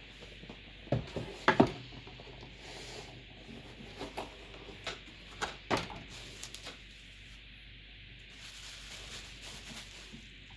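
Handling noises as a computer motherboard is taken out of its packaging: a few sharp knocks and clicks, the loudest about one and a half seconds in, with faint rubbing between them.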